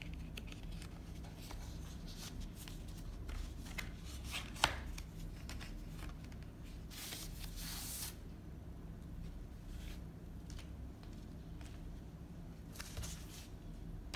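Hands handling a cardboard screen-protector package: scattered rustling and light taps, with one sharp tap about four and a half seconds in and a longer scraping rustle near the middle, where the inner sleeve is drawn out.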